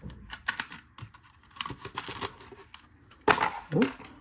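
Irregular clicking and crackling of plastic and cardboard packaging as a die-cast toy car is worked out of its tray, with one loud snap about three seconds in as it pops free.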